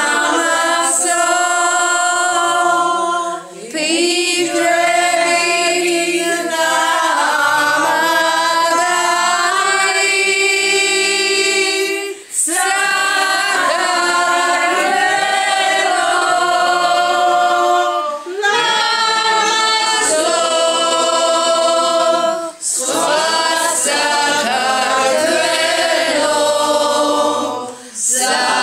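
A small mixed group, mostly women's voices, singing a song together without instruments, in long held phrases with short breaks for breath every few seconds.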